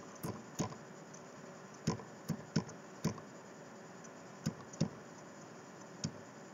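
About nine faint, sharp clicks at uneven intervals, some close together in pairs, made while the moves of a chess game are stepped through on a computer.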